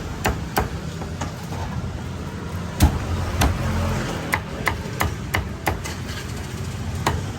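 Cleaver chopping roast pork on a chopping block: a series of sharp knocks at an uneven pace, a few a second, with a pause of about a second and a half near the start, over a low steady background rumble.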